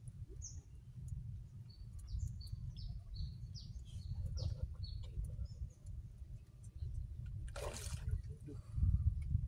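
A hooked Nile tilapia thrashing at the water's surface, one short splash about three-quarters of the way in. Small birds chirp repeatedly through the first part, over a steady low rumble.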